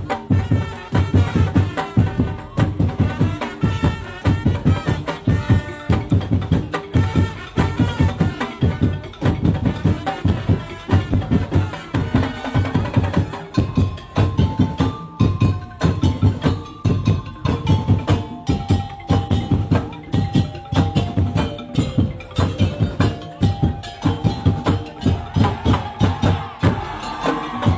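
Live percussion-driven music: fast, steady drumming with wood-block-like strikes. About halfway through, a melody of held notes joins it, stepping up and down.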